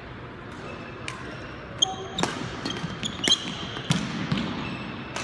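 Badminton rally: several sharp racket strikes on the shuttlecock, with high squeaks of court shoes on the wooden floor, echoing in a large sports hall.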